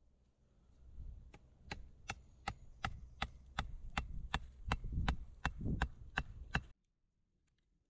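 Hatchet striking the top of an upright wooden stake, driving it into the earth with quick, even blows. There are about fifteen sharp knocks, nearly three a second, and they cut off abruptly near the end.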